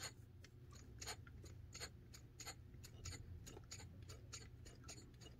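Hand vacuum pump being squeezed over and over, faint clicks about three a second, pulling vacuum on a distributor's vacuum advance diaphragm to test it.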